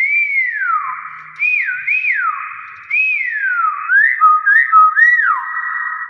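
Common hill myna whistling: a string of clear notes, most gliding down in pitch from high to lower, with a few short quick notes near the end.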